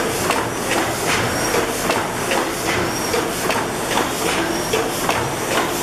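A 600-horsepower Snow-Holly Works Worthington horizontal reciprocating natural gas engine running steadily, with an even, clockwork-like clatter of about two knocks a second over constant mechanical hiss.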